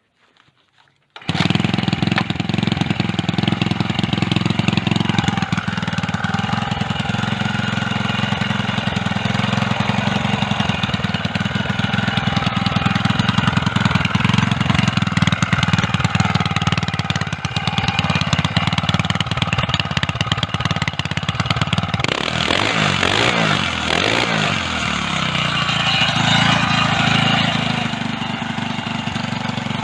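Small motorised-bicycle engine catching about a second in and then running steadily, its first start after sitting unused for most of a year; it runs cleanly and smoothly. Its speed rises and falls for a few seconds about 22 seconds in.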